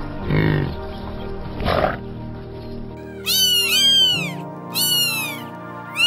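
Background music with two short, low grunts from an African buffalo near the start, then high-pitched cat meows that rise and fall, in bouts through the second half.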